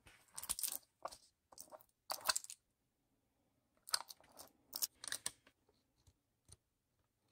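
Paper pharmacy label being peeled and torn off a small plastic jar by hand: short bursts of crackling, tearing rustles, with a pause of about a second in the middle and a small click near the end.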